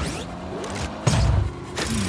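Film score music under action sound effects, with a sudden heavy impact about a second in.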